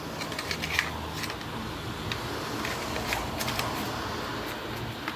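Album packaging being handled and turned over by hand: soft rustling with scattered small clicks and taps.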